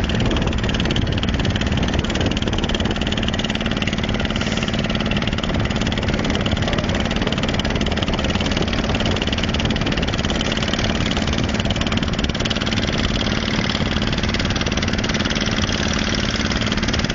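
A boat's engine running steadily while under way: a constant low hum with an even rushing noise over it.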